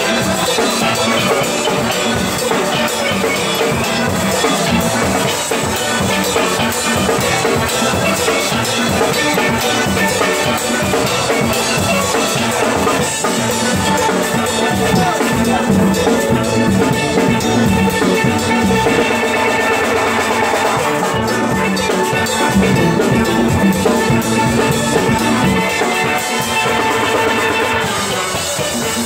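Steel band playing live: many steelpans struck with sticks, backed by a drum kit, loud and continuous.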